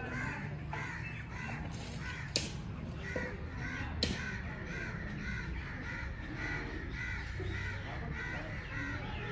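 A bird calling in a rapid, even series of short notes, about three a second, with two sharp clicks near the start.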